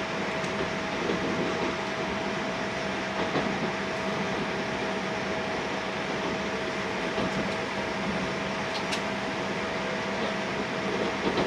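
Steady running noise inside the passenger cabin of an E6-series Akita Shinkansen Komachi train moving along the track, an even rumble and hiss with a constant low hum and a steady mid-pitched tone underneath.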